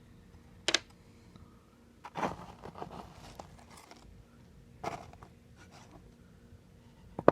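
Small items being rummaged through in a sewing machine drawer: a few sharp clicks as loose buttons and bits knock together, and a couple of seconds of rustling and clattering about two seconds in.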